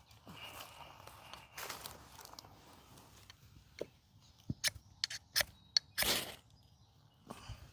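Ferrocerium rod scraped with a steel striker to throw sparks onto tinder: a quick run of short, sharp scrapes from about four and a half seconds in, ending in a longer scrape about six seconds in.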